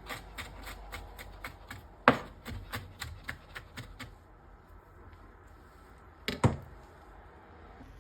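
Knife chopping on a cutting board in quick, even strokes, about three or four a second, with one harder stroke about two seconds in. The chopping stops about halfway, then two heavy knocks come close together.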